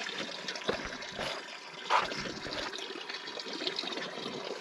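Water lapping and trickling against the hull of a boat drifting on calm sea, with a few light knocks, the loudest about two seconds in.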